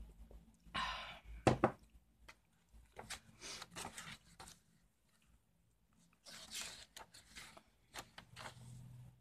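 Journal pages being turned by hand: short paper rustles and flaps, with a sharp tap about a second and a half in and a quiet spell of about a second past the middle.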